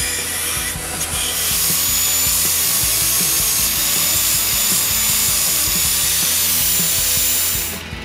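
Power tool abrading rust off a cast-iron part of an antique iron: a steady hissing run with a high whine that starts about a second in and stops shortly before the end.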